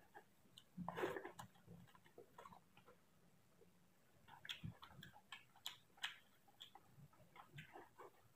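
Faint eating sounds: fingers mixing rice on a plate and mouth chewing, heard as scattered small clicks and smacks, the loudest about a second in.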